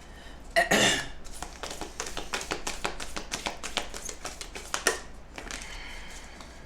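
A deck of oracle cards being shuffled by hand: a loud slap just under a second in, then a quick, irregular run of sharp card clicks and flicks for about four seconds.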